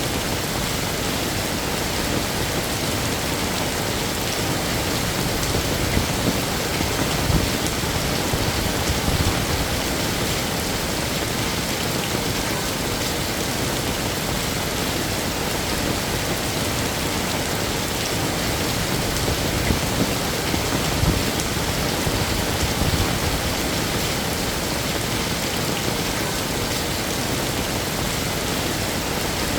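Heavy rain falling steadily, a dense even hiss of drops hitting surfaces. A low rumble swells up twice, once in the first third and again past the middle.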